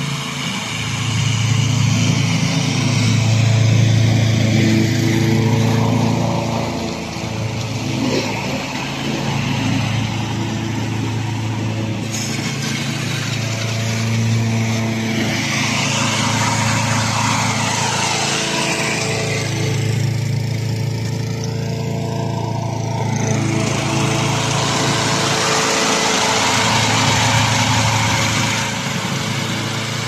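Remote-controlled tracked lawn mower with a front snow blade, its engine running steadily as it pushes snow, the engine note shifting slightly up and down. A broad hiss rises over the middle stretch.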